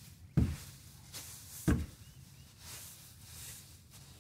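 Rake dragging straw bedding across the coop floor, with two sharp knocks about a second and a half apart as it strikes the boards, then a softer scraping hiss.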